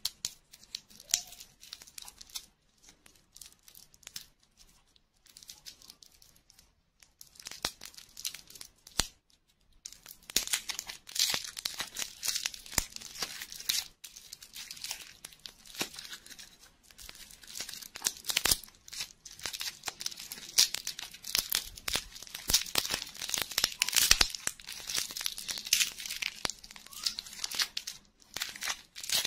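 Clear plastic lollipop wrapper being peeled and crinkled by hand. The crackles are sparse and quiet at first, then run thick and steady from about ten seconds in.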